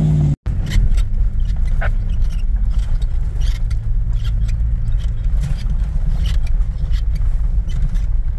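Jeep's engine and running gear heard from inside the cab while driving slowly over a rough gravel trail: a steady low drone with scattered knocks and rattles. A revving engine is heard briefly at the start and is cut off sharply.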